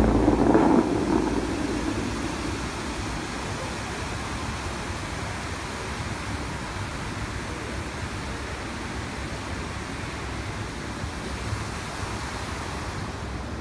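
Dubai Fountain's water jets spraying and falling back into the lake: a steady rush of splashing water. The tail of the show's music fades out in the first second.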